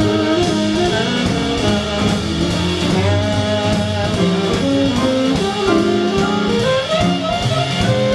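Live jazz big band playing, with a stepping bass line under the melody.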